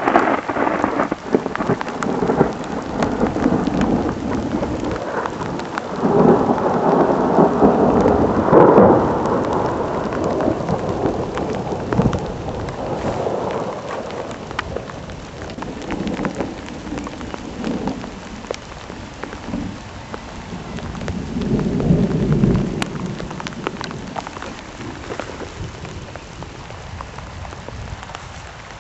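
Thunder rumbling from a supercell thunderstorm: a long roll starting about six seconds in and another about three-quarters of the way through, over a steady hiss of rain.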